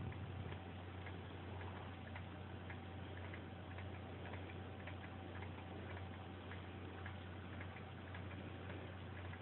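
Faint light ticks, a few a second, over a steady low hum.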